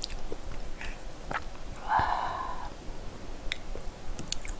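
Close-miked eating sounds: a short slurp of spaghetti about two seconds in, among scattered small wet mouth clicks and light utensil clicks.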